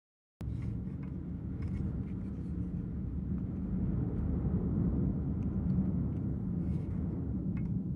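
A car ferry's engines rumbling steadily as the ferry comes in to dock, with a few faint clicks and rattles on top. The rumble starts abruptly about half a second in.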